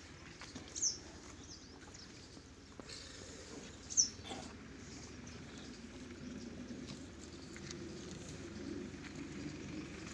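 Birds calling: two short, sharp, high chirps, about a second in and about four seconds in, over a faint low background hum that grows slightly louder in the second half.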